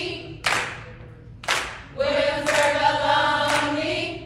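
A group of women's voices singing a chant in unison, broken off by sharp claps about half a second and a second and a half in, then singing together again from about two seconds in.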